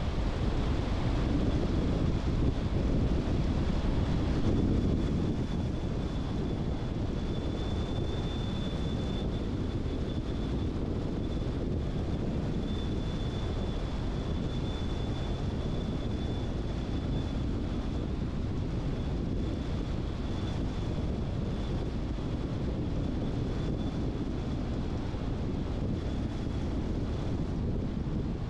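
Car driving along a road: steady tyre and wind noise, a little louder for the first few seconds, with a faint high steady whine over it.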